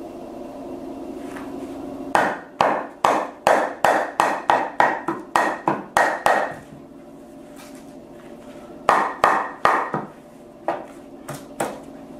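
Hammer tapping wooden dowels into the pre-drilled holes of a pine bed frame: a quick run of about ten blows, a pause of a couple of seconds, then a few more blows and some lighter taps.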